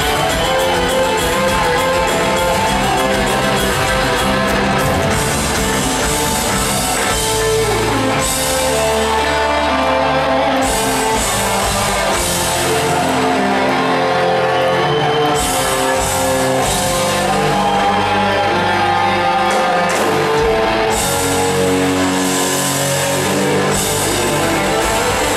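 Live rock band playing an instrumental jam: electric guitar lead lines over bass and drum kit.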